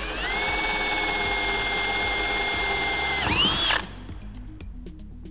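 DeWalt cordless drill spinning up and running at a steady high whine while boring a hole through a white plastic sheet. About three and a half seconds in, its pitch dips and climbs again, then it stops. Quieter background music follows.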